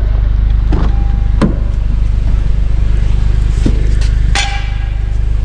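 Honda Civic Si four-cylinder engine idling with its muffler deleted: a loud, steady, deep exhaust rumble. Two sharp knocks, about a second and a half in and near four and a half seconds.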